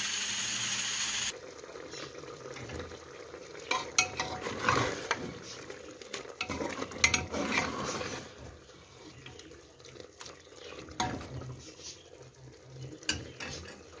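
Aluminium pressure cooker with a weighted valve hissing steadily as steam escapes, cut off abruptly about a second in. Then a metal slotted spoon stirs tripe in sauce in the open pot, with scattered scrapes and clinks against the pot over a faint sizzle of the sauce cooking down.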